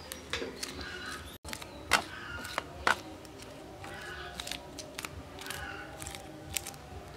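Knife scraping the scales off a hilsa fish on a steel plate: a run of short, irregular scrapes and clicks, a few louder than the rest.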